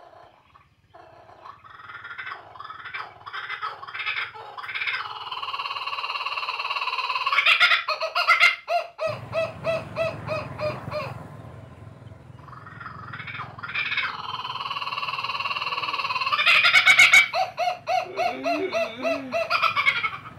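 Loud monkey calls, heard twice. A run of high cries grows louder over several seconds, then breaks into a fast series of short pulsed notes, about four a second.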